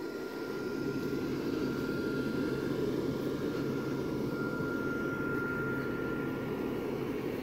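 Blower fan of a lit inflatable Christmas lawn decoration running steadily: a low whir with a thin high whine over it, a little louder from about a second in as the camera moves up to the inflatable.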